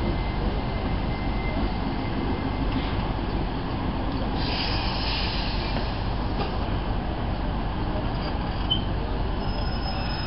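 Royal Mail train's vans rolling past close by, a steady rumble of wheels on rail with a brief hiss about halfway through.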